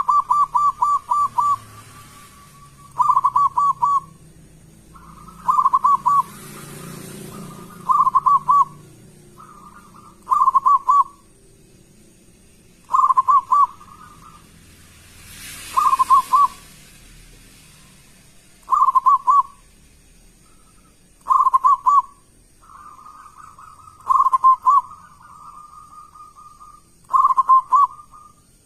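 Zebra dove cooing loudly, a quick staccato run of notes given as one phrase and repeated about every two to three seconds.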